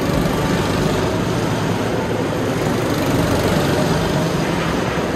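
Rental go-kart engines running as several karts race around the track, a steady engine drone with no pauses.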